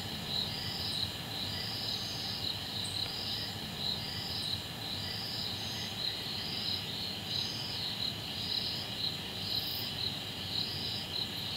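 Night chorus of crickets: steady high-pitched chirping that pulses roughly once a second without a break.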